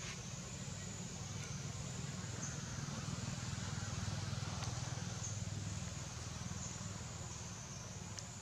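Steady outdoor background: a constant high insect drone over a low, steady rumble, with a few faint clicks.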